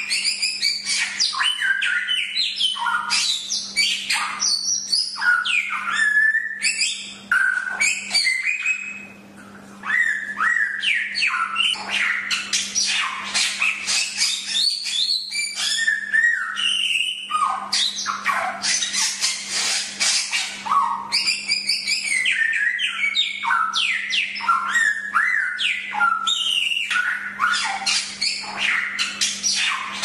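A samyong songbird singing a rapid, unbroken run of varied chirps, trills and quick up-and-down whistles, with a short lull about eight to ten seconds in. A low steady hum lies under the song.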